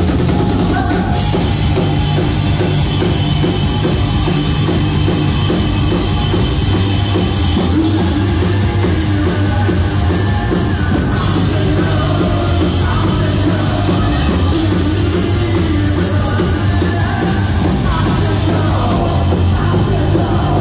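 Live rock band playing loud and steady, with electric guitars, bass and drum kit, and a voice singing over it in the latter half.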